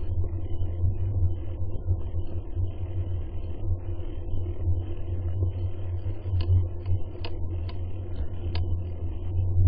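Low, steady rumble of a bicycle in motion, picked up by the camera riding along, with a few light clicks in the second half.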